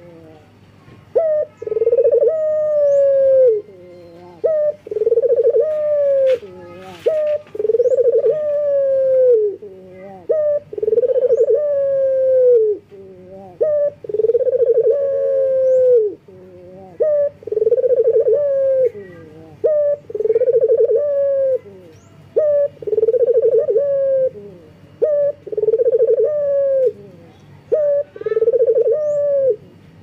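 A male Barbary dove (domestic ringneck dove) cooing over and over: each phrase a short clipped note followed by a long drawn-out coo that drops in pitch at its end, repeated every two seconds or so. These are the advertising calls of a male in breeding condition calling to a female.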